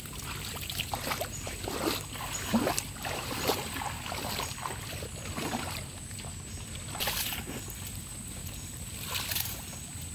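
Shallow muddy water splashing and sloshing as a collapsible mesh trap net is lifted and handled, in irregular small splashes.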